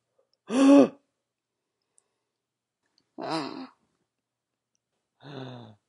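A man's voice gasping three times: short voiced 'oh'-like gasps with dead silence between. The first, about half a second in, is the loudest and highest, its pitch rising then falling. The last is the lowest and quietest.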